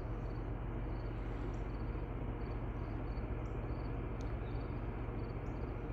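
Crickets chirping in short, evenly repeated high pulses over a steady low hum and background noise.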